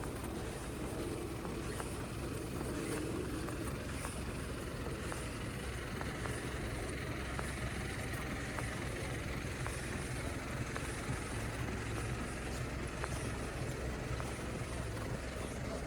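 Steady traffic rumble from road vehicles, with a walker's footsteps repeating about twice a second.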